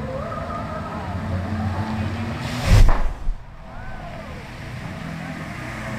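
A sudden loud whoosh of a flame burst from a fountain show's fire effect, about three seconds in, with a smaller puff just after. It sits over a steady low hum.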